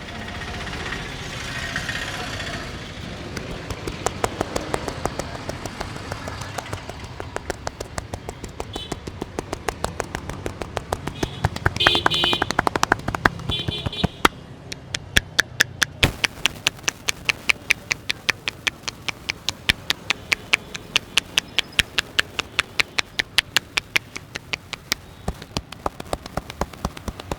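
A barber's hands tapping rhythmically on a client's head during an Indian head massage. The taps are sharp and quick, several a second, starting a few seconds in and keeping an even pace over a low street background.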